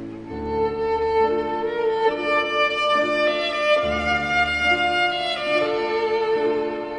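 Instrumental music: a bowed violin melody of long held notes over sustained low bass notes.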